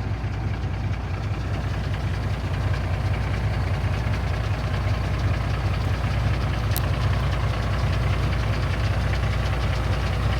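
A vehicle engine running steadily with a deep, even hum.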